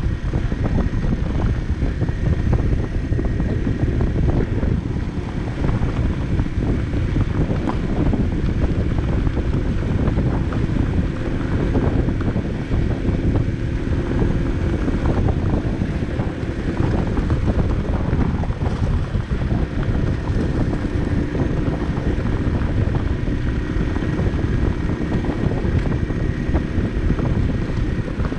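Barton Volcano 50cc moped riding at a steady pace, its small engine humming under heavy wind buffeting on the microphone and the rumble of tyres on a loose gravel road surface.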